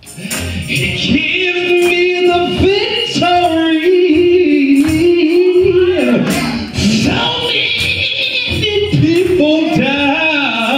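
Gospel singing: a man sings into a handheld microphone, holding long notes that waver in pitch.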